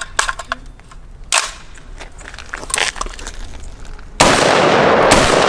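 A few light metallic clicks from the AR-15 being handled, then about four seconds in the rifle opens fire: a sudden, loud, rapid string of shots that keeps going.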